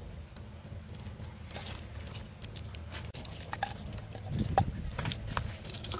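Scattered small clicks and snaps as red chillies are broken up and dropped, along with garlic cloves, into a wooden mortar. A few louder knocks come about four and a half seconds in.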